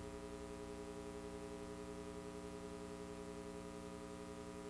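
Faint steady hum of several tones held together, unchanging throughout, with no other sound.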